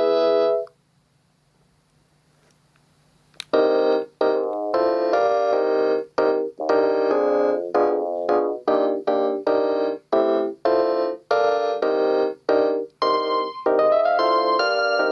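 Panasonic KX-TGD62xE cordless phone ringtones played through the handset's speaker. One tone stops about half a second in. After about three seconds of silence and a single click, a new electronic melody with piano-like notes starts, played as a quick run of short, separate notes.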